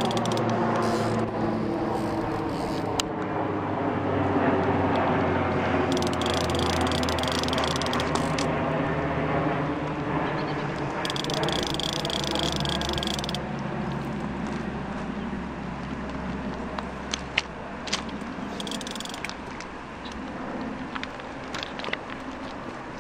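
Fast river water rushing steadily, with a fishing reel's drag buzzing in two spells as a hooked steelhead takes line, and a few sharp clicks near the end.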